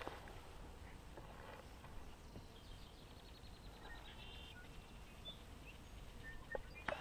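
Quiet lakeside background: faint steady outdoor noise with a few soft, short chirps, and a single sharp click near the end.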